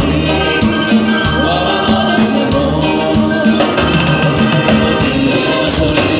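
Live band playing upbeat Latin dance music with a steady beat, with singing over it.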